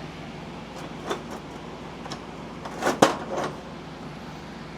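Old tools being handled in a metal toolbox: a few scattered clinks and knocks of metal, the loudest about three seconds in, over a steady low hum.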